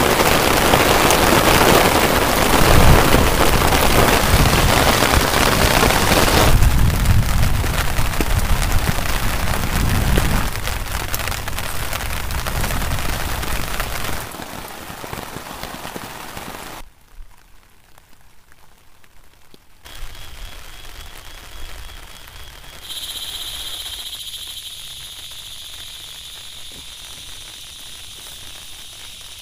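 Heavy rain drumming on a tarpaulin shelter, loud and steady for about the first half. It then cuts to quieter stretches, and in the last few seconds a steady high-pitched drone sits over faint background.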